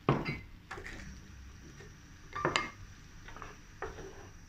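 Teriyaki sauce simmering in a nonstick frying pan while it reduces, with a few sharp knocks and scrapes of a wooden spatula against the pan. The loudest knock comes just at the start and another about two and a half seconds in.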